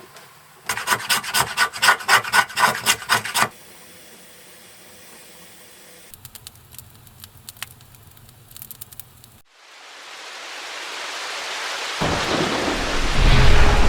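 A quick run of rasping, scraping strokes for about three seconds, then a few scattered clicks. Near the end, steady rain hiss swells in and a low rumble of thunder follows.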